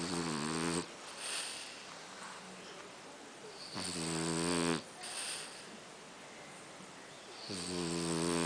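A pet snoring in its sleep. It gives a low, pitched snore on each breath in, about a second long, followed by a shorter breathy puff out, and repeats roughly every four seconds, three snores in all.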